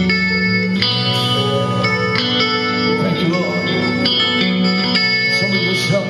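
Live music led by a Telecaster-style electric guitar playing held chords that change about once a second, without singing.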